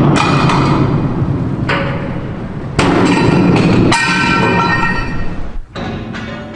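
Hammer blows on a steel support under a ship's hull, each with a metallic ring: about five strikes at irregular intervals, two of them in quick succession near four seconds in.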